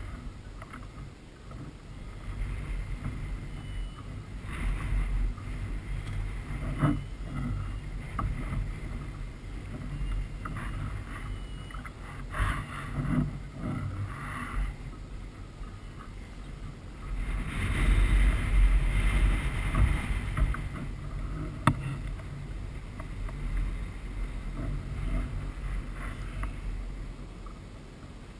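Wind rumbling on the microphone and water against a kayak's hull, with scattered knocks and clicks from handling the fishing rod and gear; the noise swells louder for a few seconds about two-thirds of the way through.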